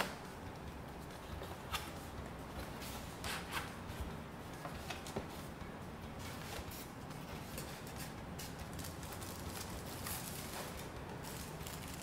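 A cardboard box being opened by hand: flaps are pulled apart and folded back, and the cardboard and packing inserts rustle and scrape. Short light knocks and scrapes come every second or so.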